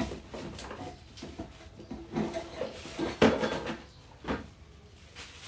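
Cardboard box and plastic packaging being handled: rustling and scattered light knocks, the sharpest about three seconds in.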